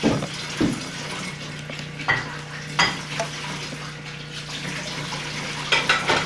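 Dishes being washed by hand at a kitchen sink: plates, pots and cutlery clink against each other several times, with a quick run of clinks near the end, over water in the sink and a steady low hum.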